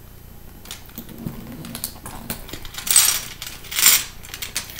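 Metal chain strap of a Versace handbag clinking and clicking against the bag's D-ring hardware as it is handled, with two louder rattles about three and four seconds in.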